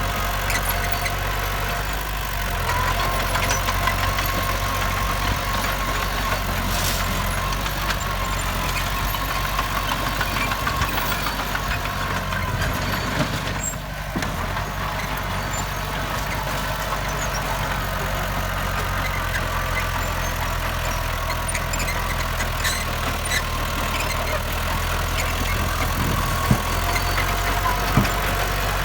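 Heavy diesel earthmoving machinery engine running steadily, with a few sharp metallic knocks near the end.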